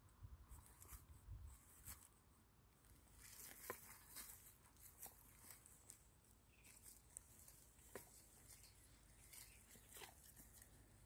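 Near silence, with faint scattered rustles and crackles.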